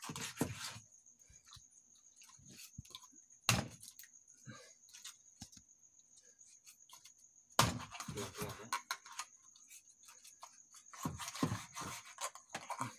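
Machete hacking and sawing through the body of a large stingray on wooden deck planks: irregular knocks, thuds and scraping clicks, coming thickest a little past halfway and again near the end.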